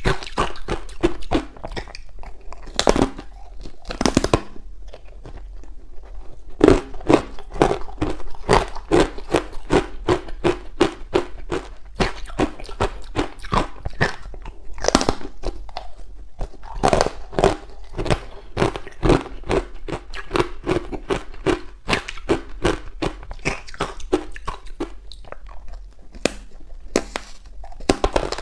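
Ice coated in matcha powder being bitten and chewed: a rapid, continuous run of crisp crunches, with a few louder bites standing out.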